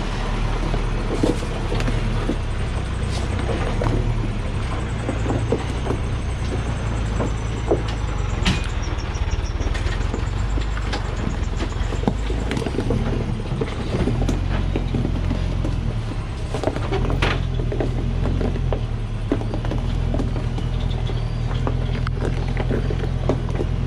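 Heavily loaded Hoa Mai truck's diesel engine pulling steadily at crawling speed, with frequent clanks and knocks from the chained tyres and running gear over rough stony ground. The truck is running on with a smashed rear differential.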